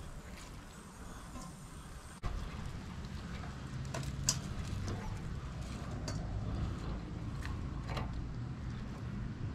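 Metal barbecue tongs clicking and scraping against a charcoal grill's grate and a stainless steel bowl as pieces of grilled goat meat are lifted off, a few sharp clinks scattered through. Underneath runs a steady low rumble that gets louder about two seconds in.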